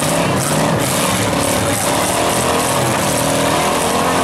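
Engines of several demolition derby cars running loudly together, rising and falling as the cars manoeuvre and push against one another.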